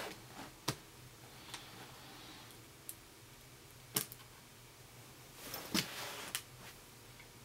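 Sparse light clicks and taps from a screwdriver and plastic laptop screen parts being handled during reassembly, with a small cluster of them a little before the end.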